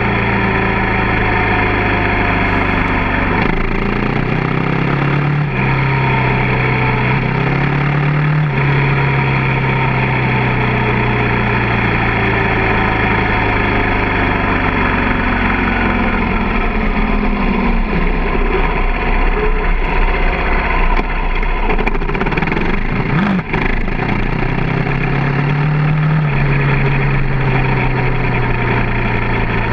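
KTM 450 dirt bike's single-cylinder four-stroke engine running under way. Its pitch climbs and drops a few times as it shifts up, falls slowly as the bike slows, and climbs again near the end.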